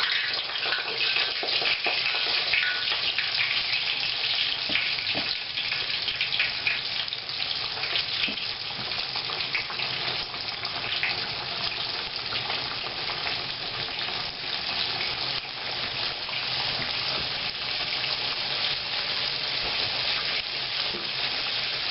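Chicken pieces frying in hot vegetable oil in a pan over high heat: a steady, dense sizzle full of small crackling pops.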